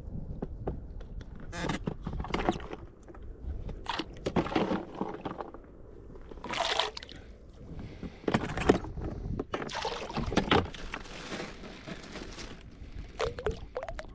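Oars splashing and water sloshing around an inflatable dinghy, with knocks and rubbing from the boat, in irregular bursts.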